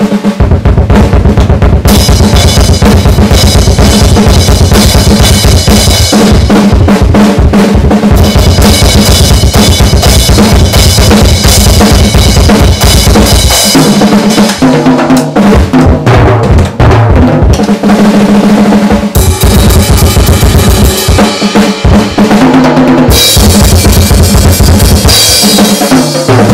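Acoustic drum kit played very loud and fast: a rapid bass-drum pattern under snare hits and a constant wash of crashing cymbals. About halfway through it breaks into tom fills for a few seconds, then goes back to full-kit playing.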